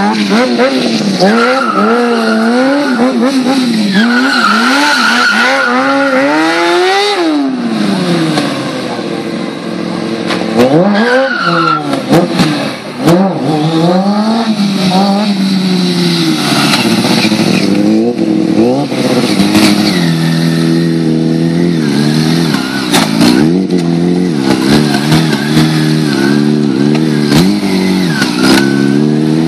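Sport bike engine revving hard and dropping back again and again through drifts and wheelies, held at a steadier pitch for long stretches in the second half, with tyre squeal in places as the rear wheel spins and slides.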